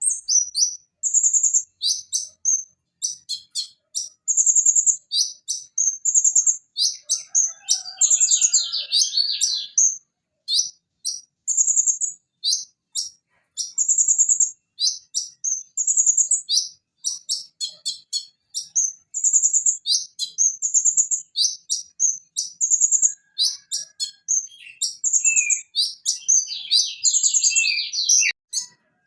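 Purple-throated sunbird (Leptocoma sperata) singing: a rapid run of very high, sharp chirps and short buzzy trills in quick phrases with brief gaps, with a denser twittering passage a few seconds in and again near the end.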